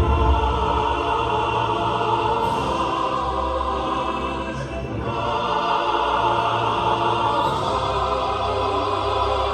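A small group of trained singers performing a sacred chorus in full, rich, opera-like voices, with a brief break between phrases about five seconds in.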